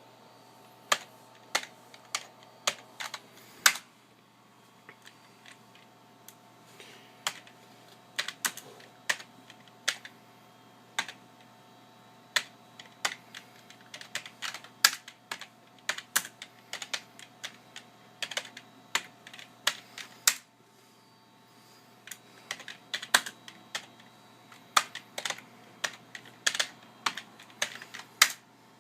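Computer keyboard being typed on in irregular runs of keystrokes, entering commands at a DOS prompt. The typing pauses for a few seconds about four seconds in and briefly again about twenty seconds in.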